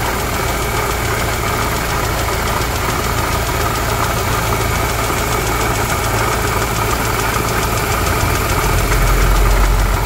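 Toyota Corolla 1.8 four-cylinder engine idling steadily, heard up close under the open hood, with a deeper rumble swelling about nine seconds in.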